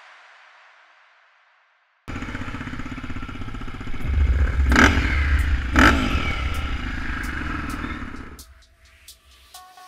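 Background music fades out, and after a brief silence a motorcycle engine is heard running, with two sharp loud surges about a second apart; the engine sound drops away near the end, leaving faint clicks.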